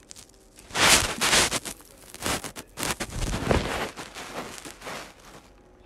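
Rustling, scraping handling noise on a phone's microphone, in irregular loud bursts for about five seconds that die away near the end.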